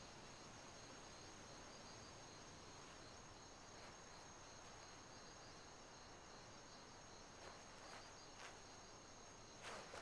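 Near silence: faint meadow ambience with a steady high chirring of insects, and a few soft rustles near the end.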